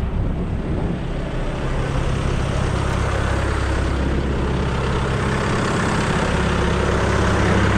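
A heavy engine on a hydroseeding truck rig running steadily: a low, even hum with a hiss over it that grows slightly louder toward the end.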